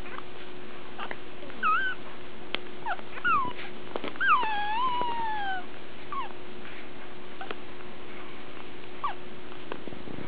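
Newborn Labrador puppies whimpering: two short high squeaks, then a longer whine that falls in pitch, with faint ticks and a steady low hum underneath.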